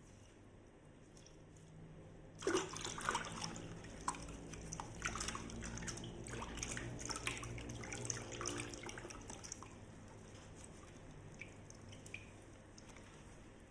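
Water running and splashing into a sink, with small clicks and clatter, starting about two and a half seconds in and easing off past the middle.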